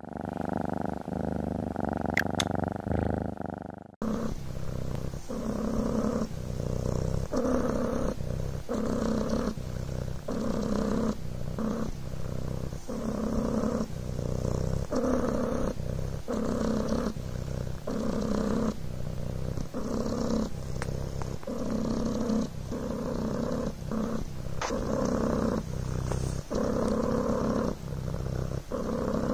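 Devon Rex cat purring close to the microphone. The continuous buzzing purr breaks briefly a little more often than once a second, in rhythm with its breathing.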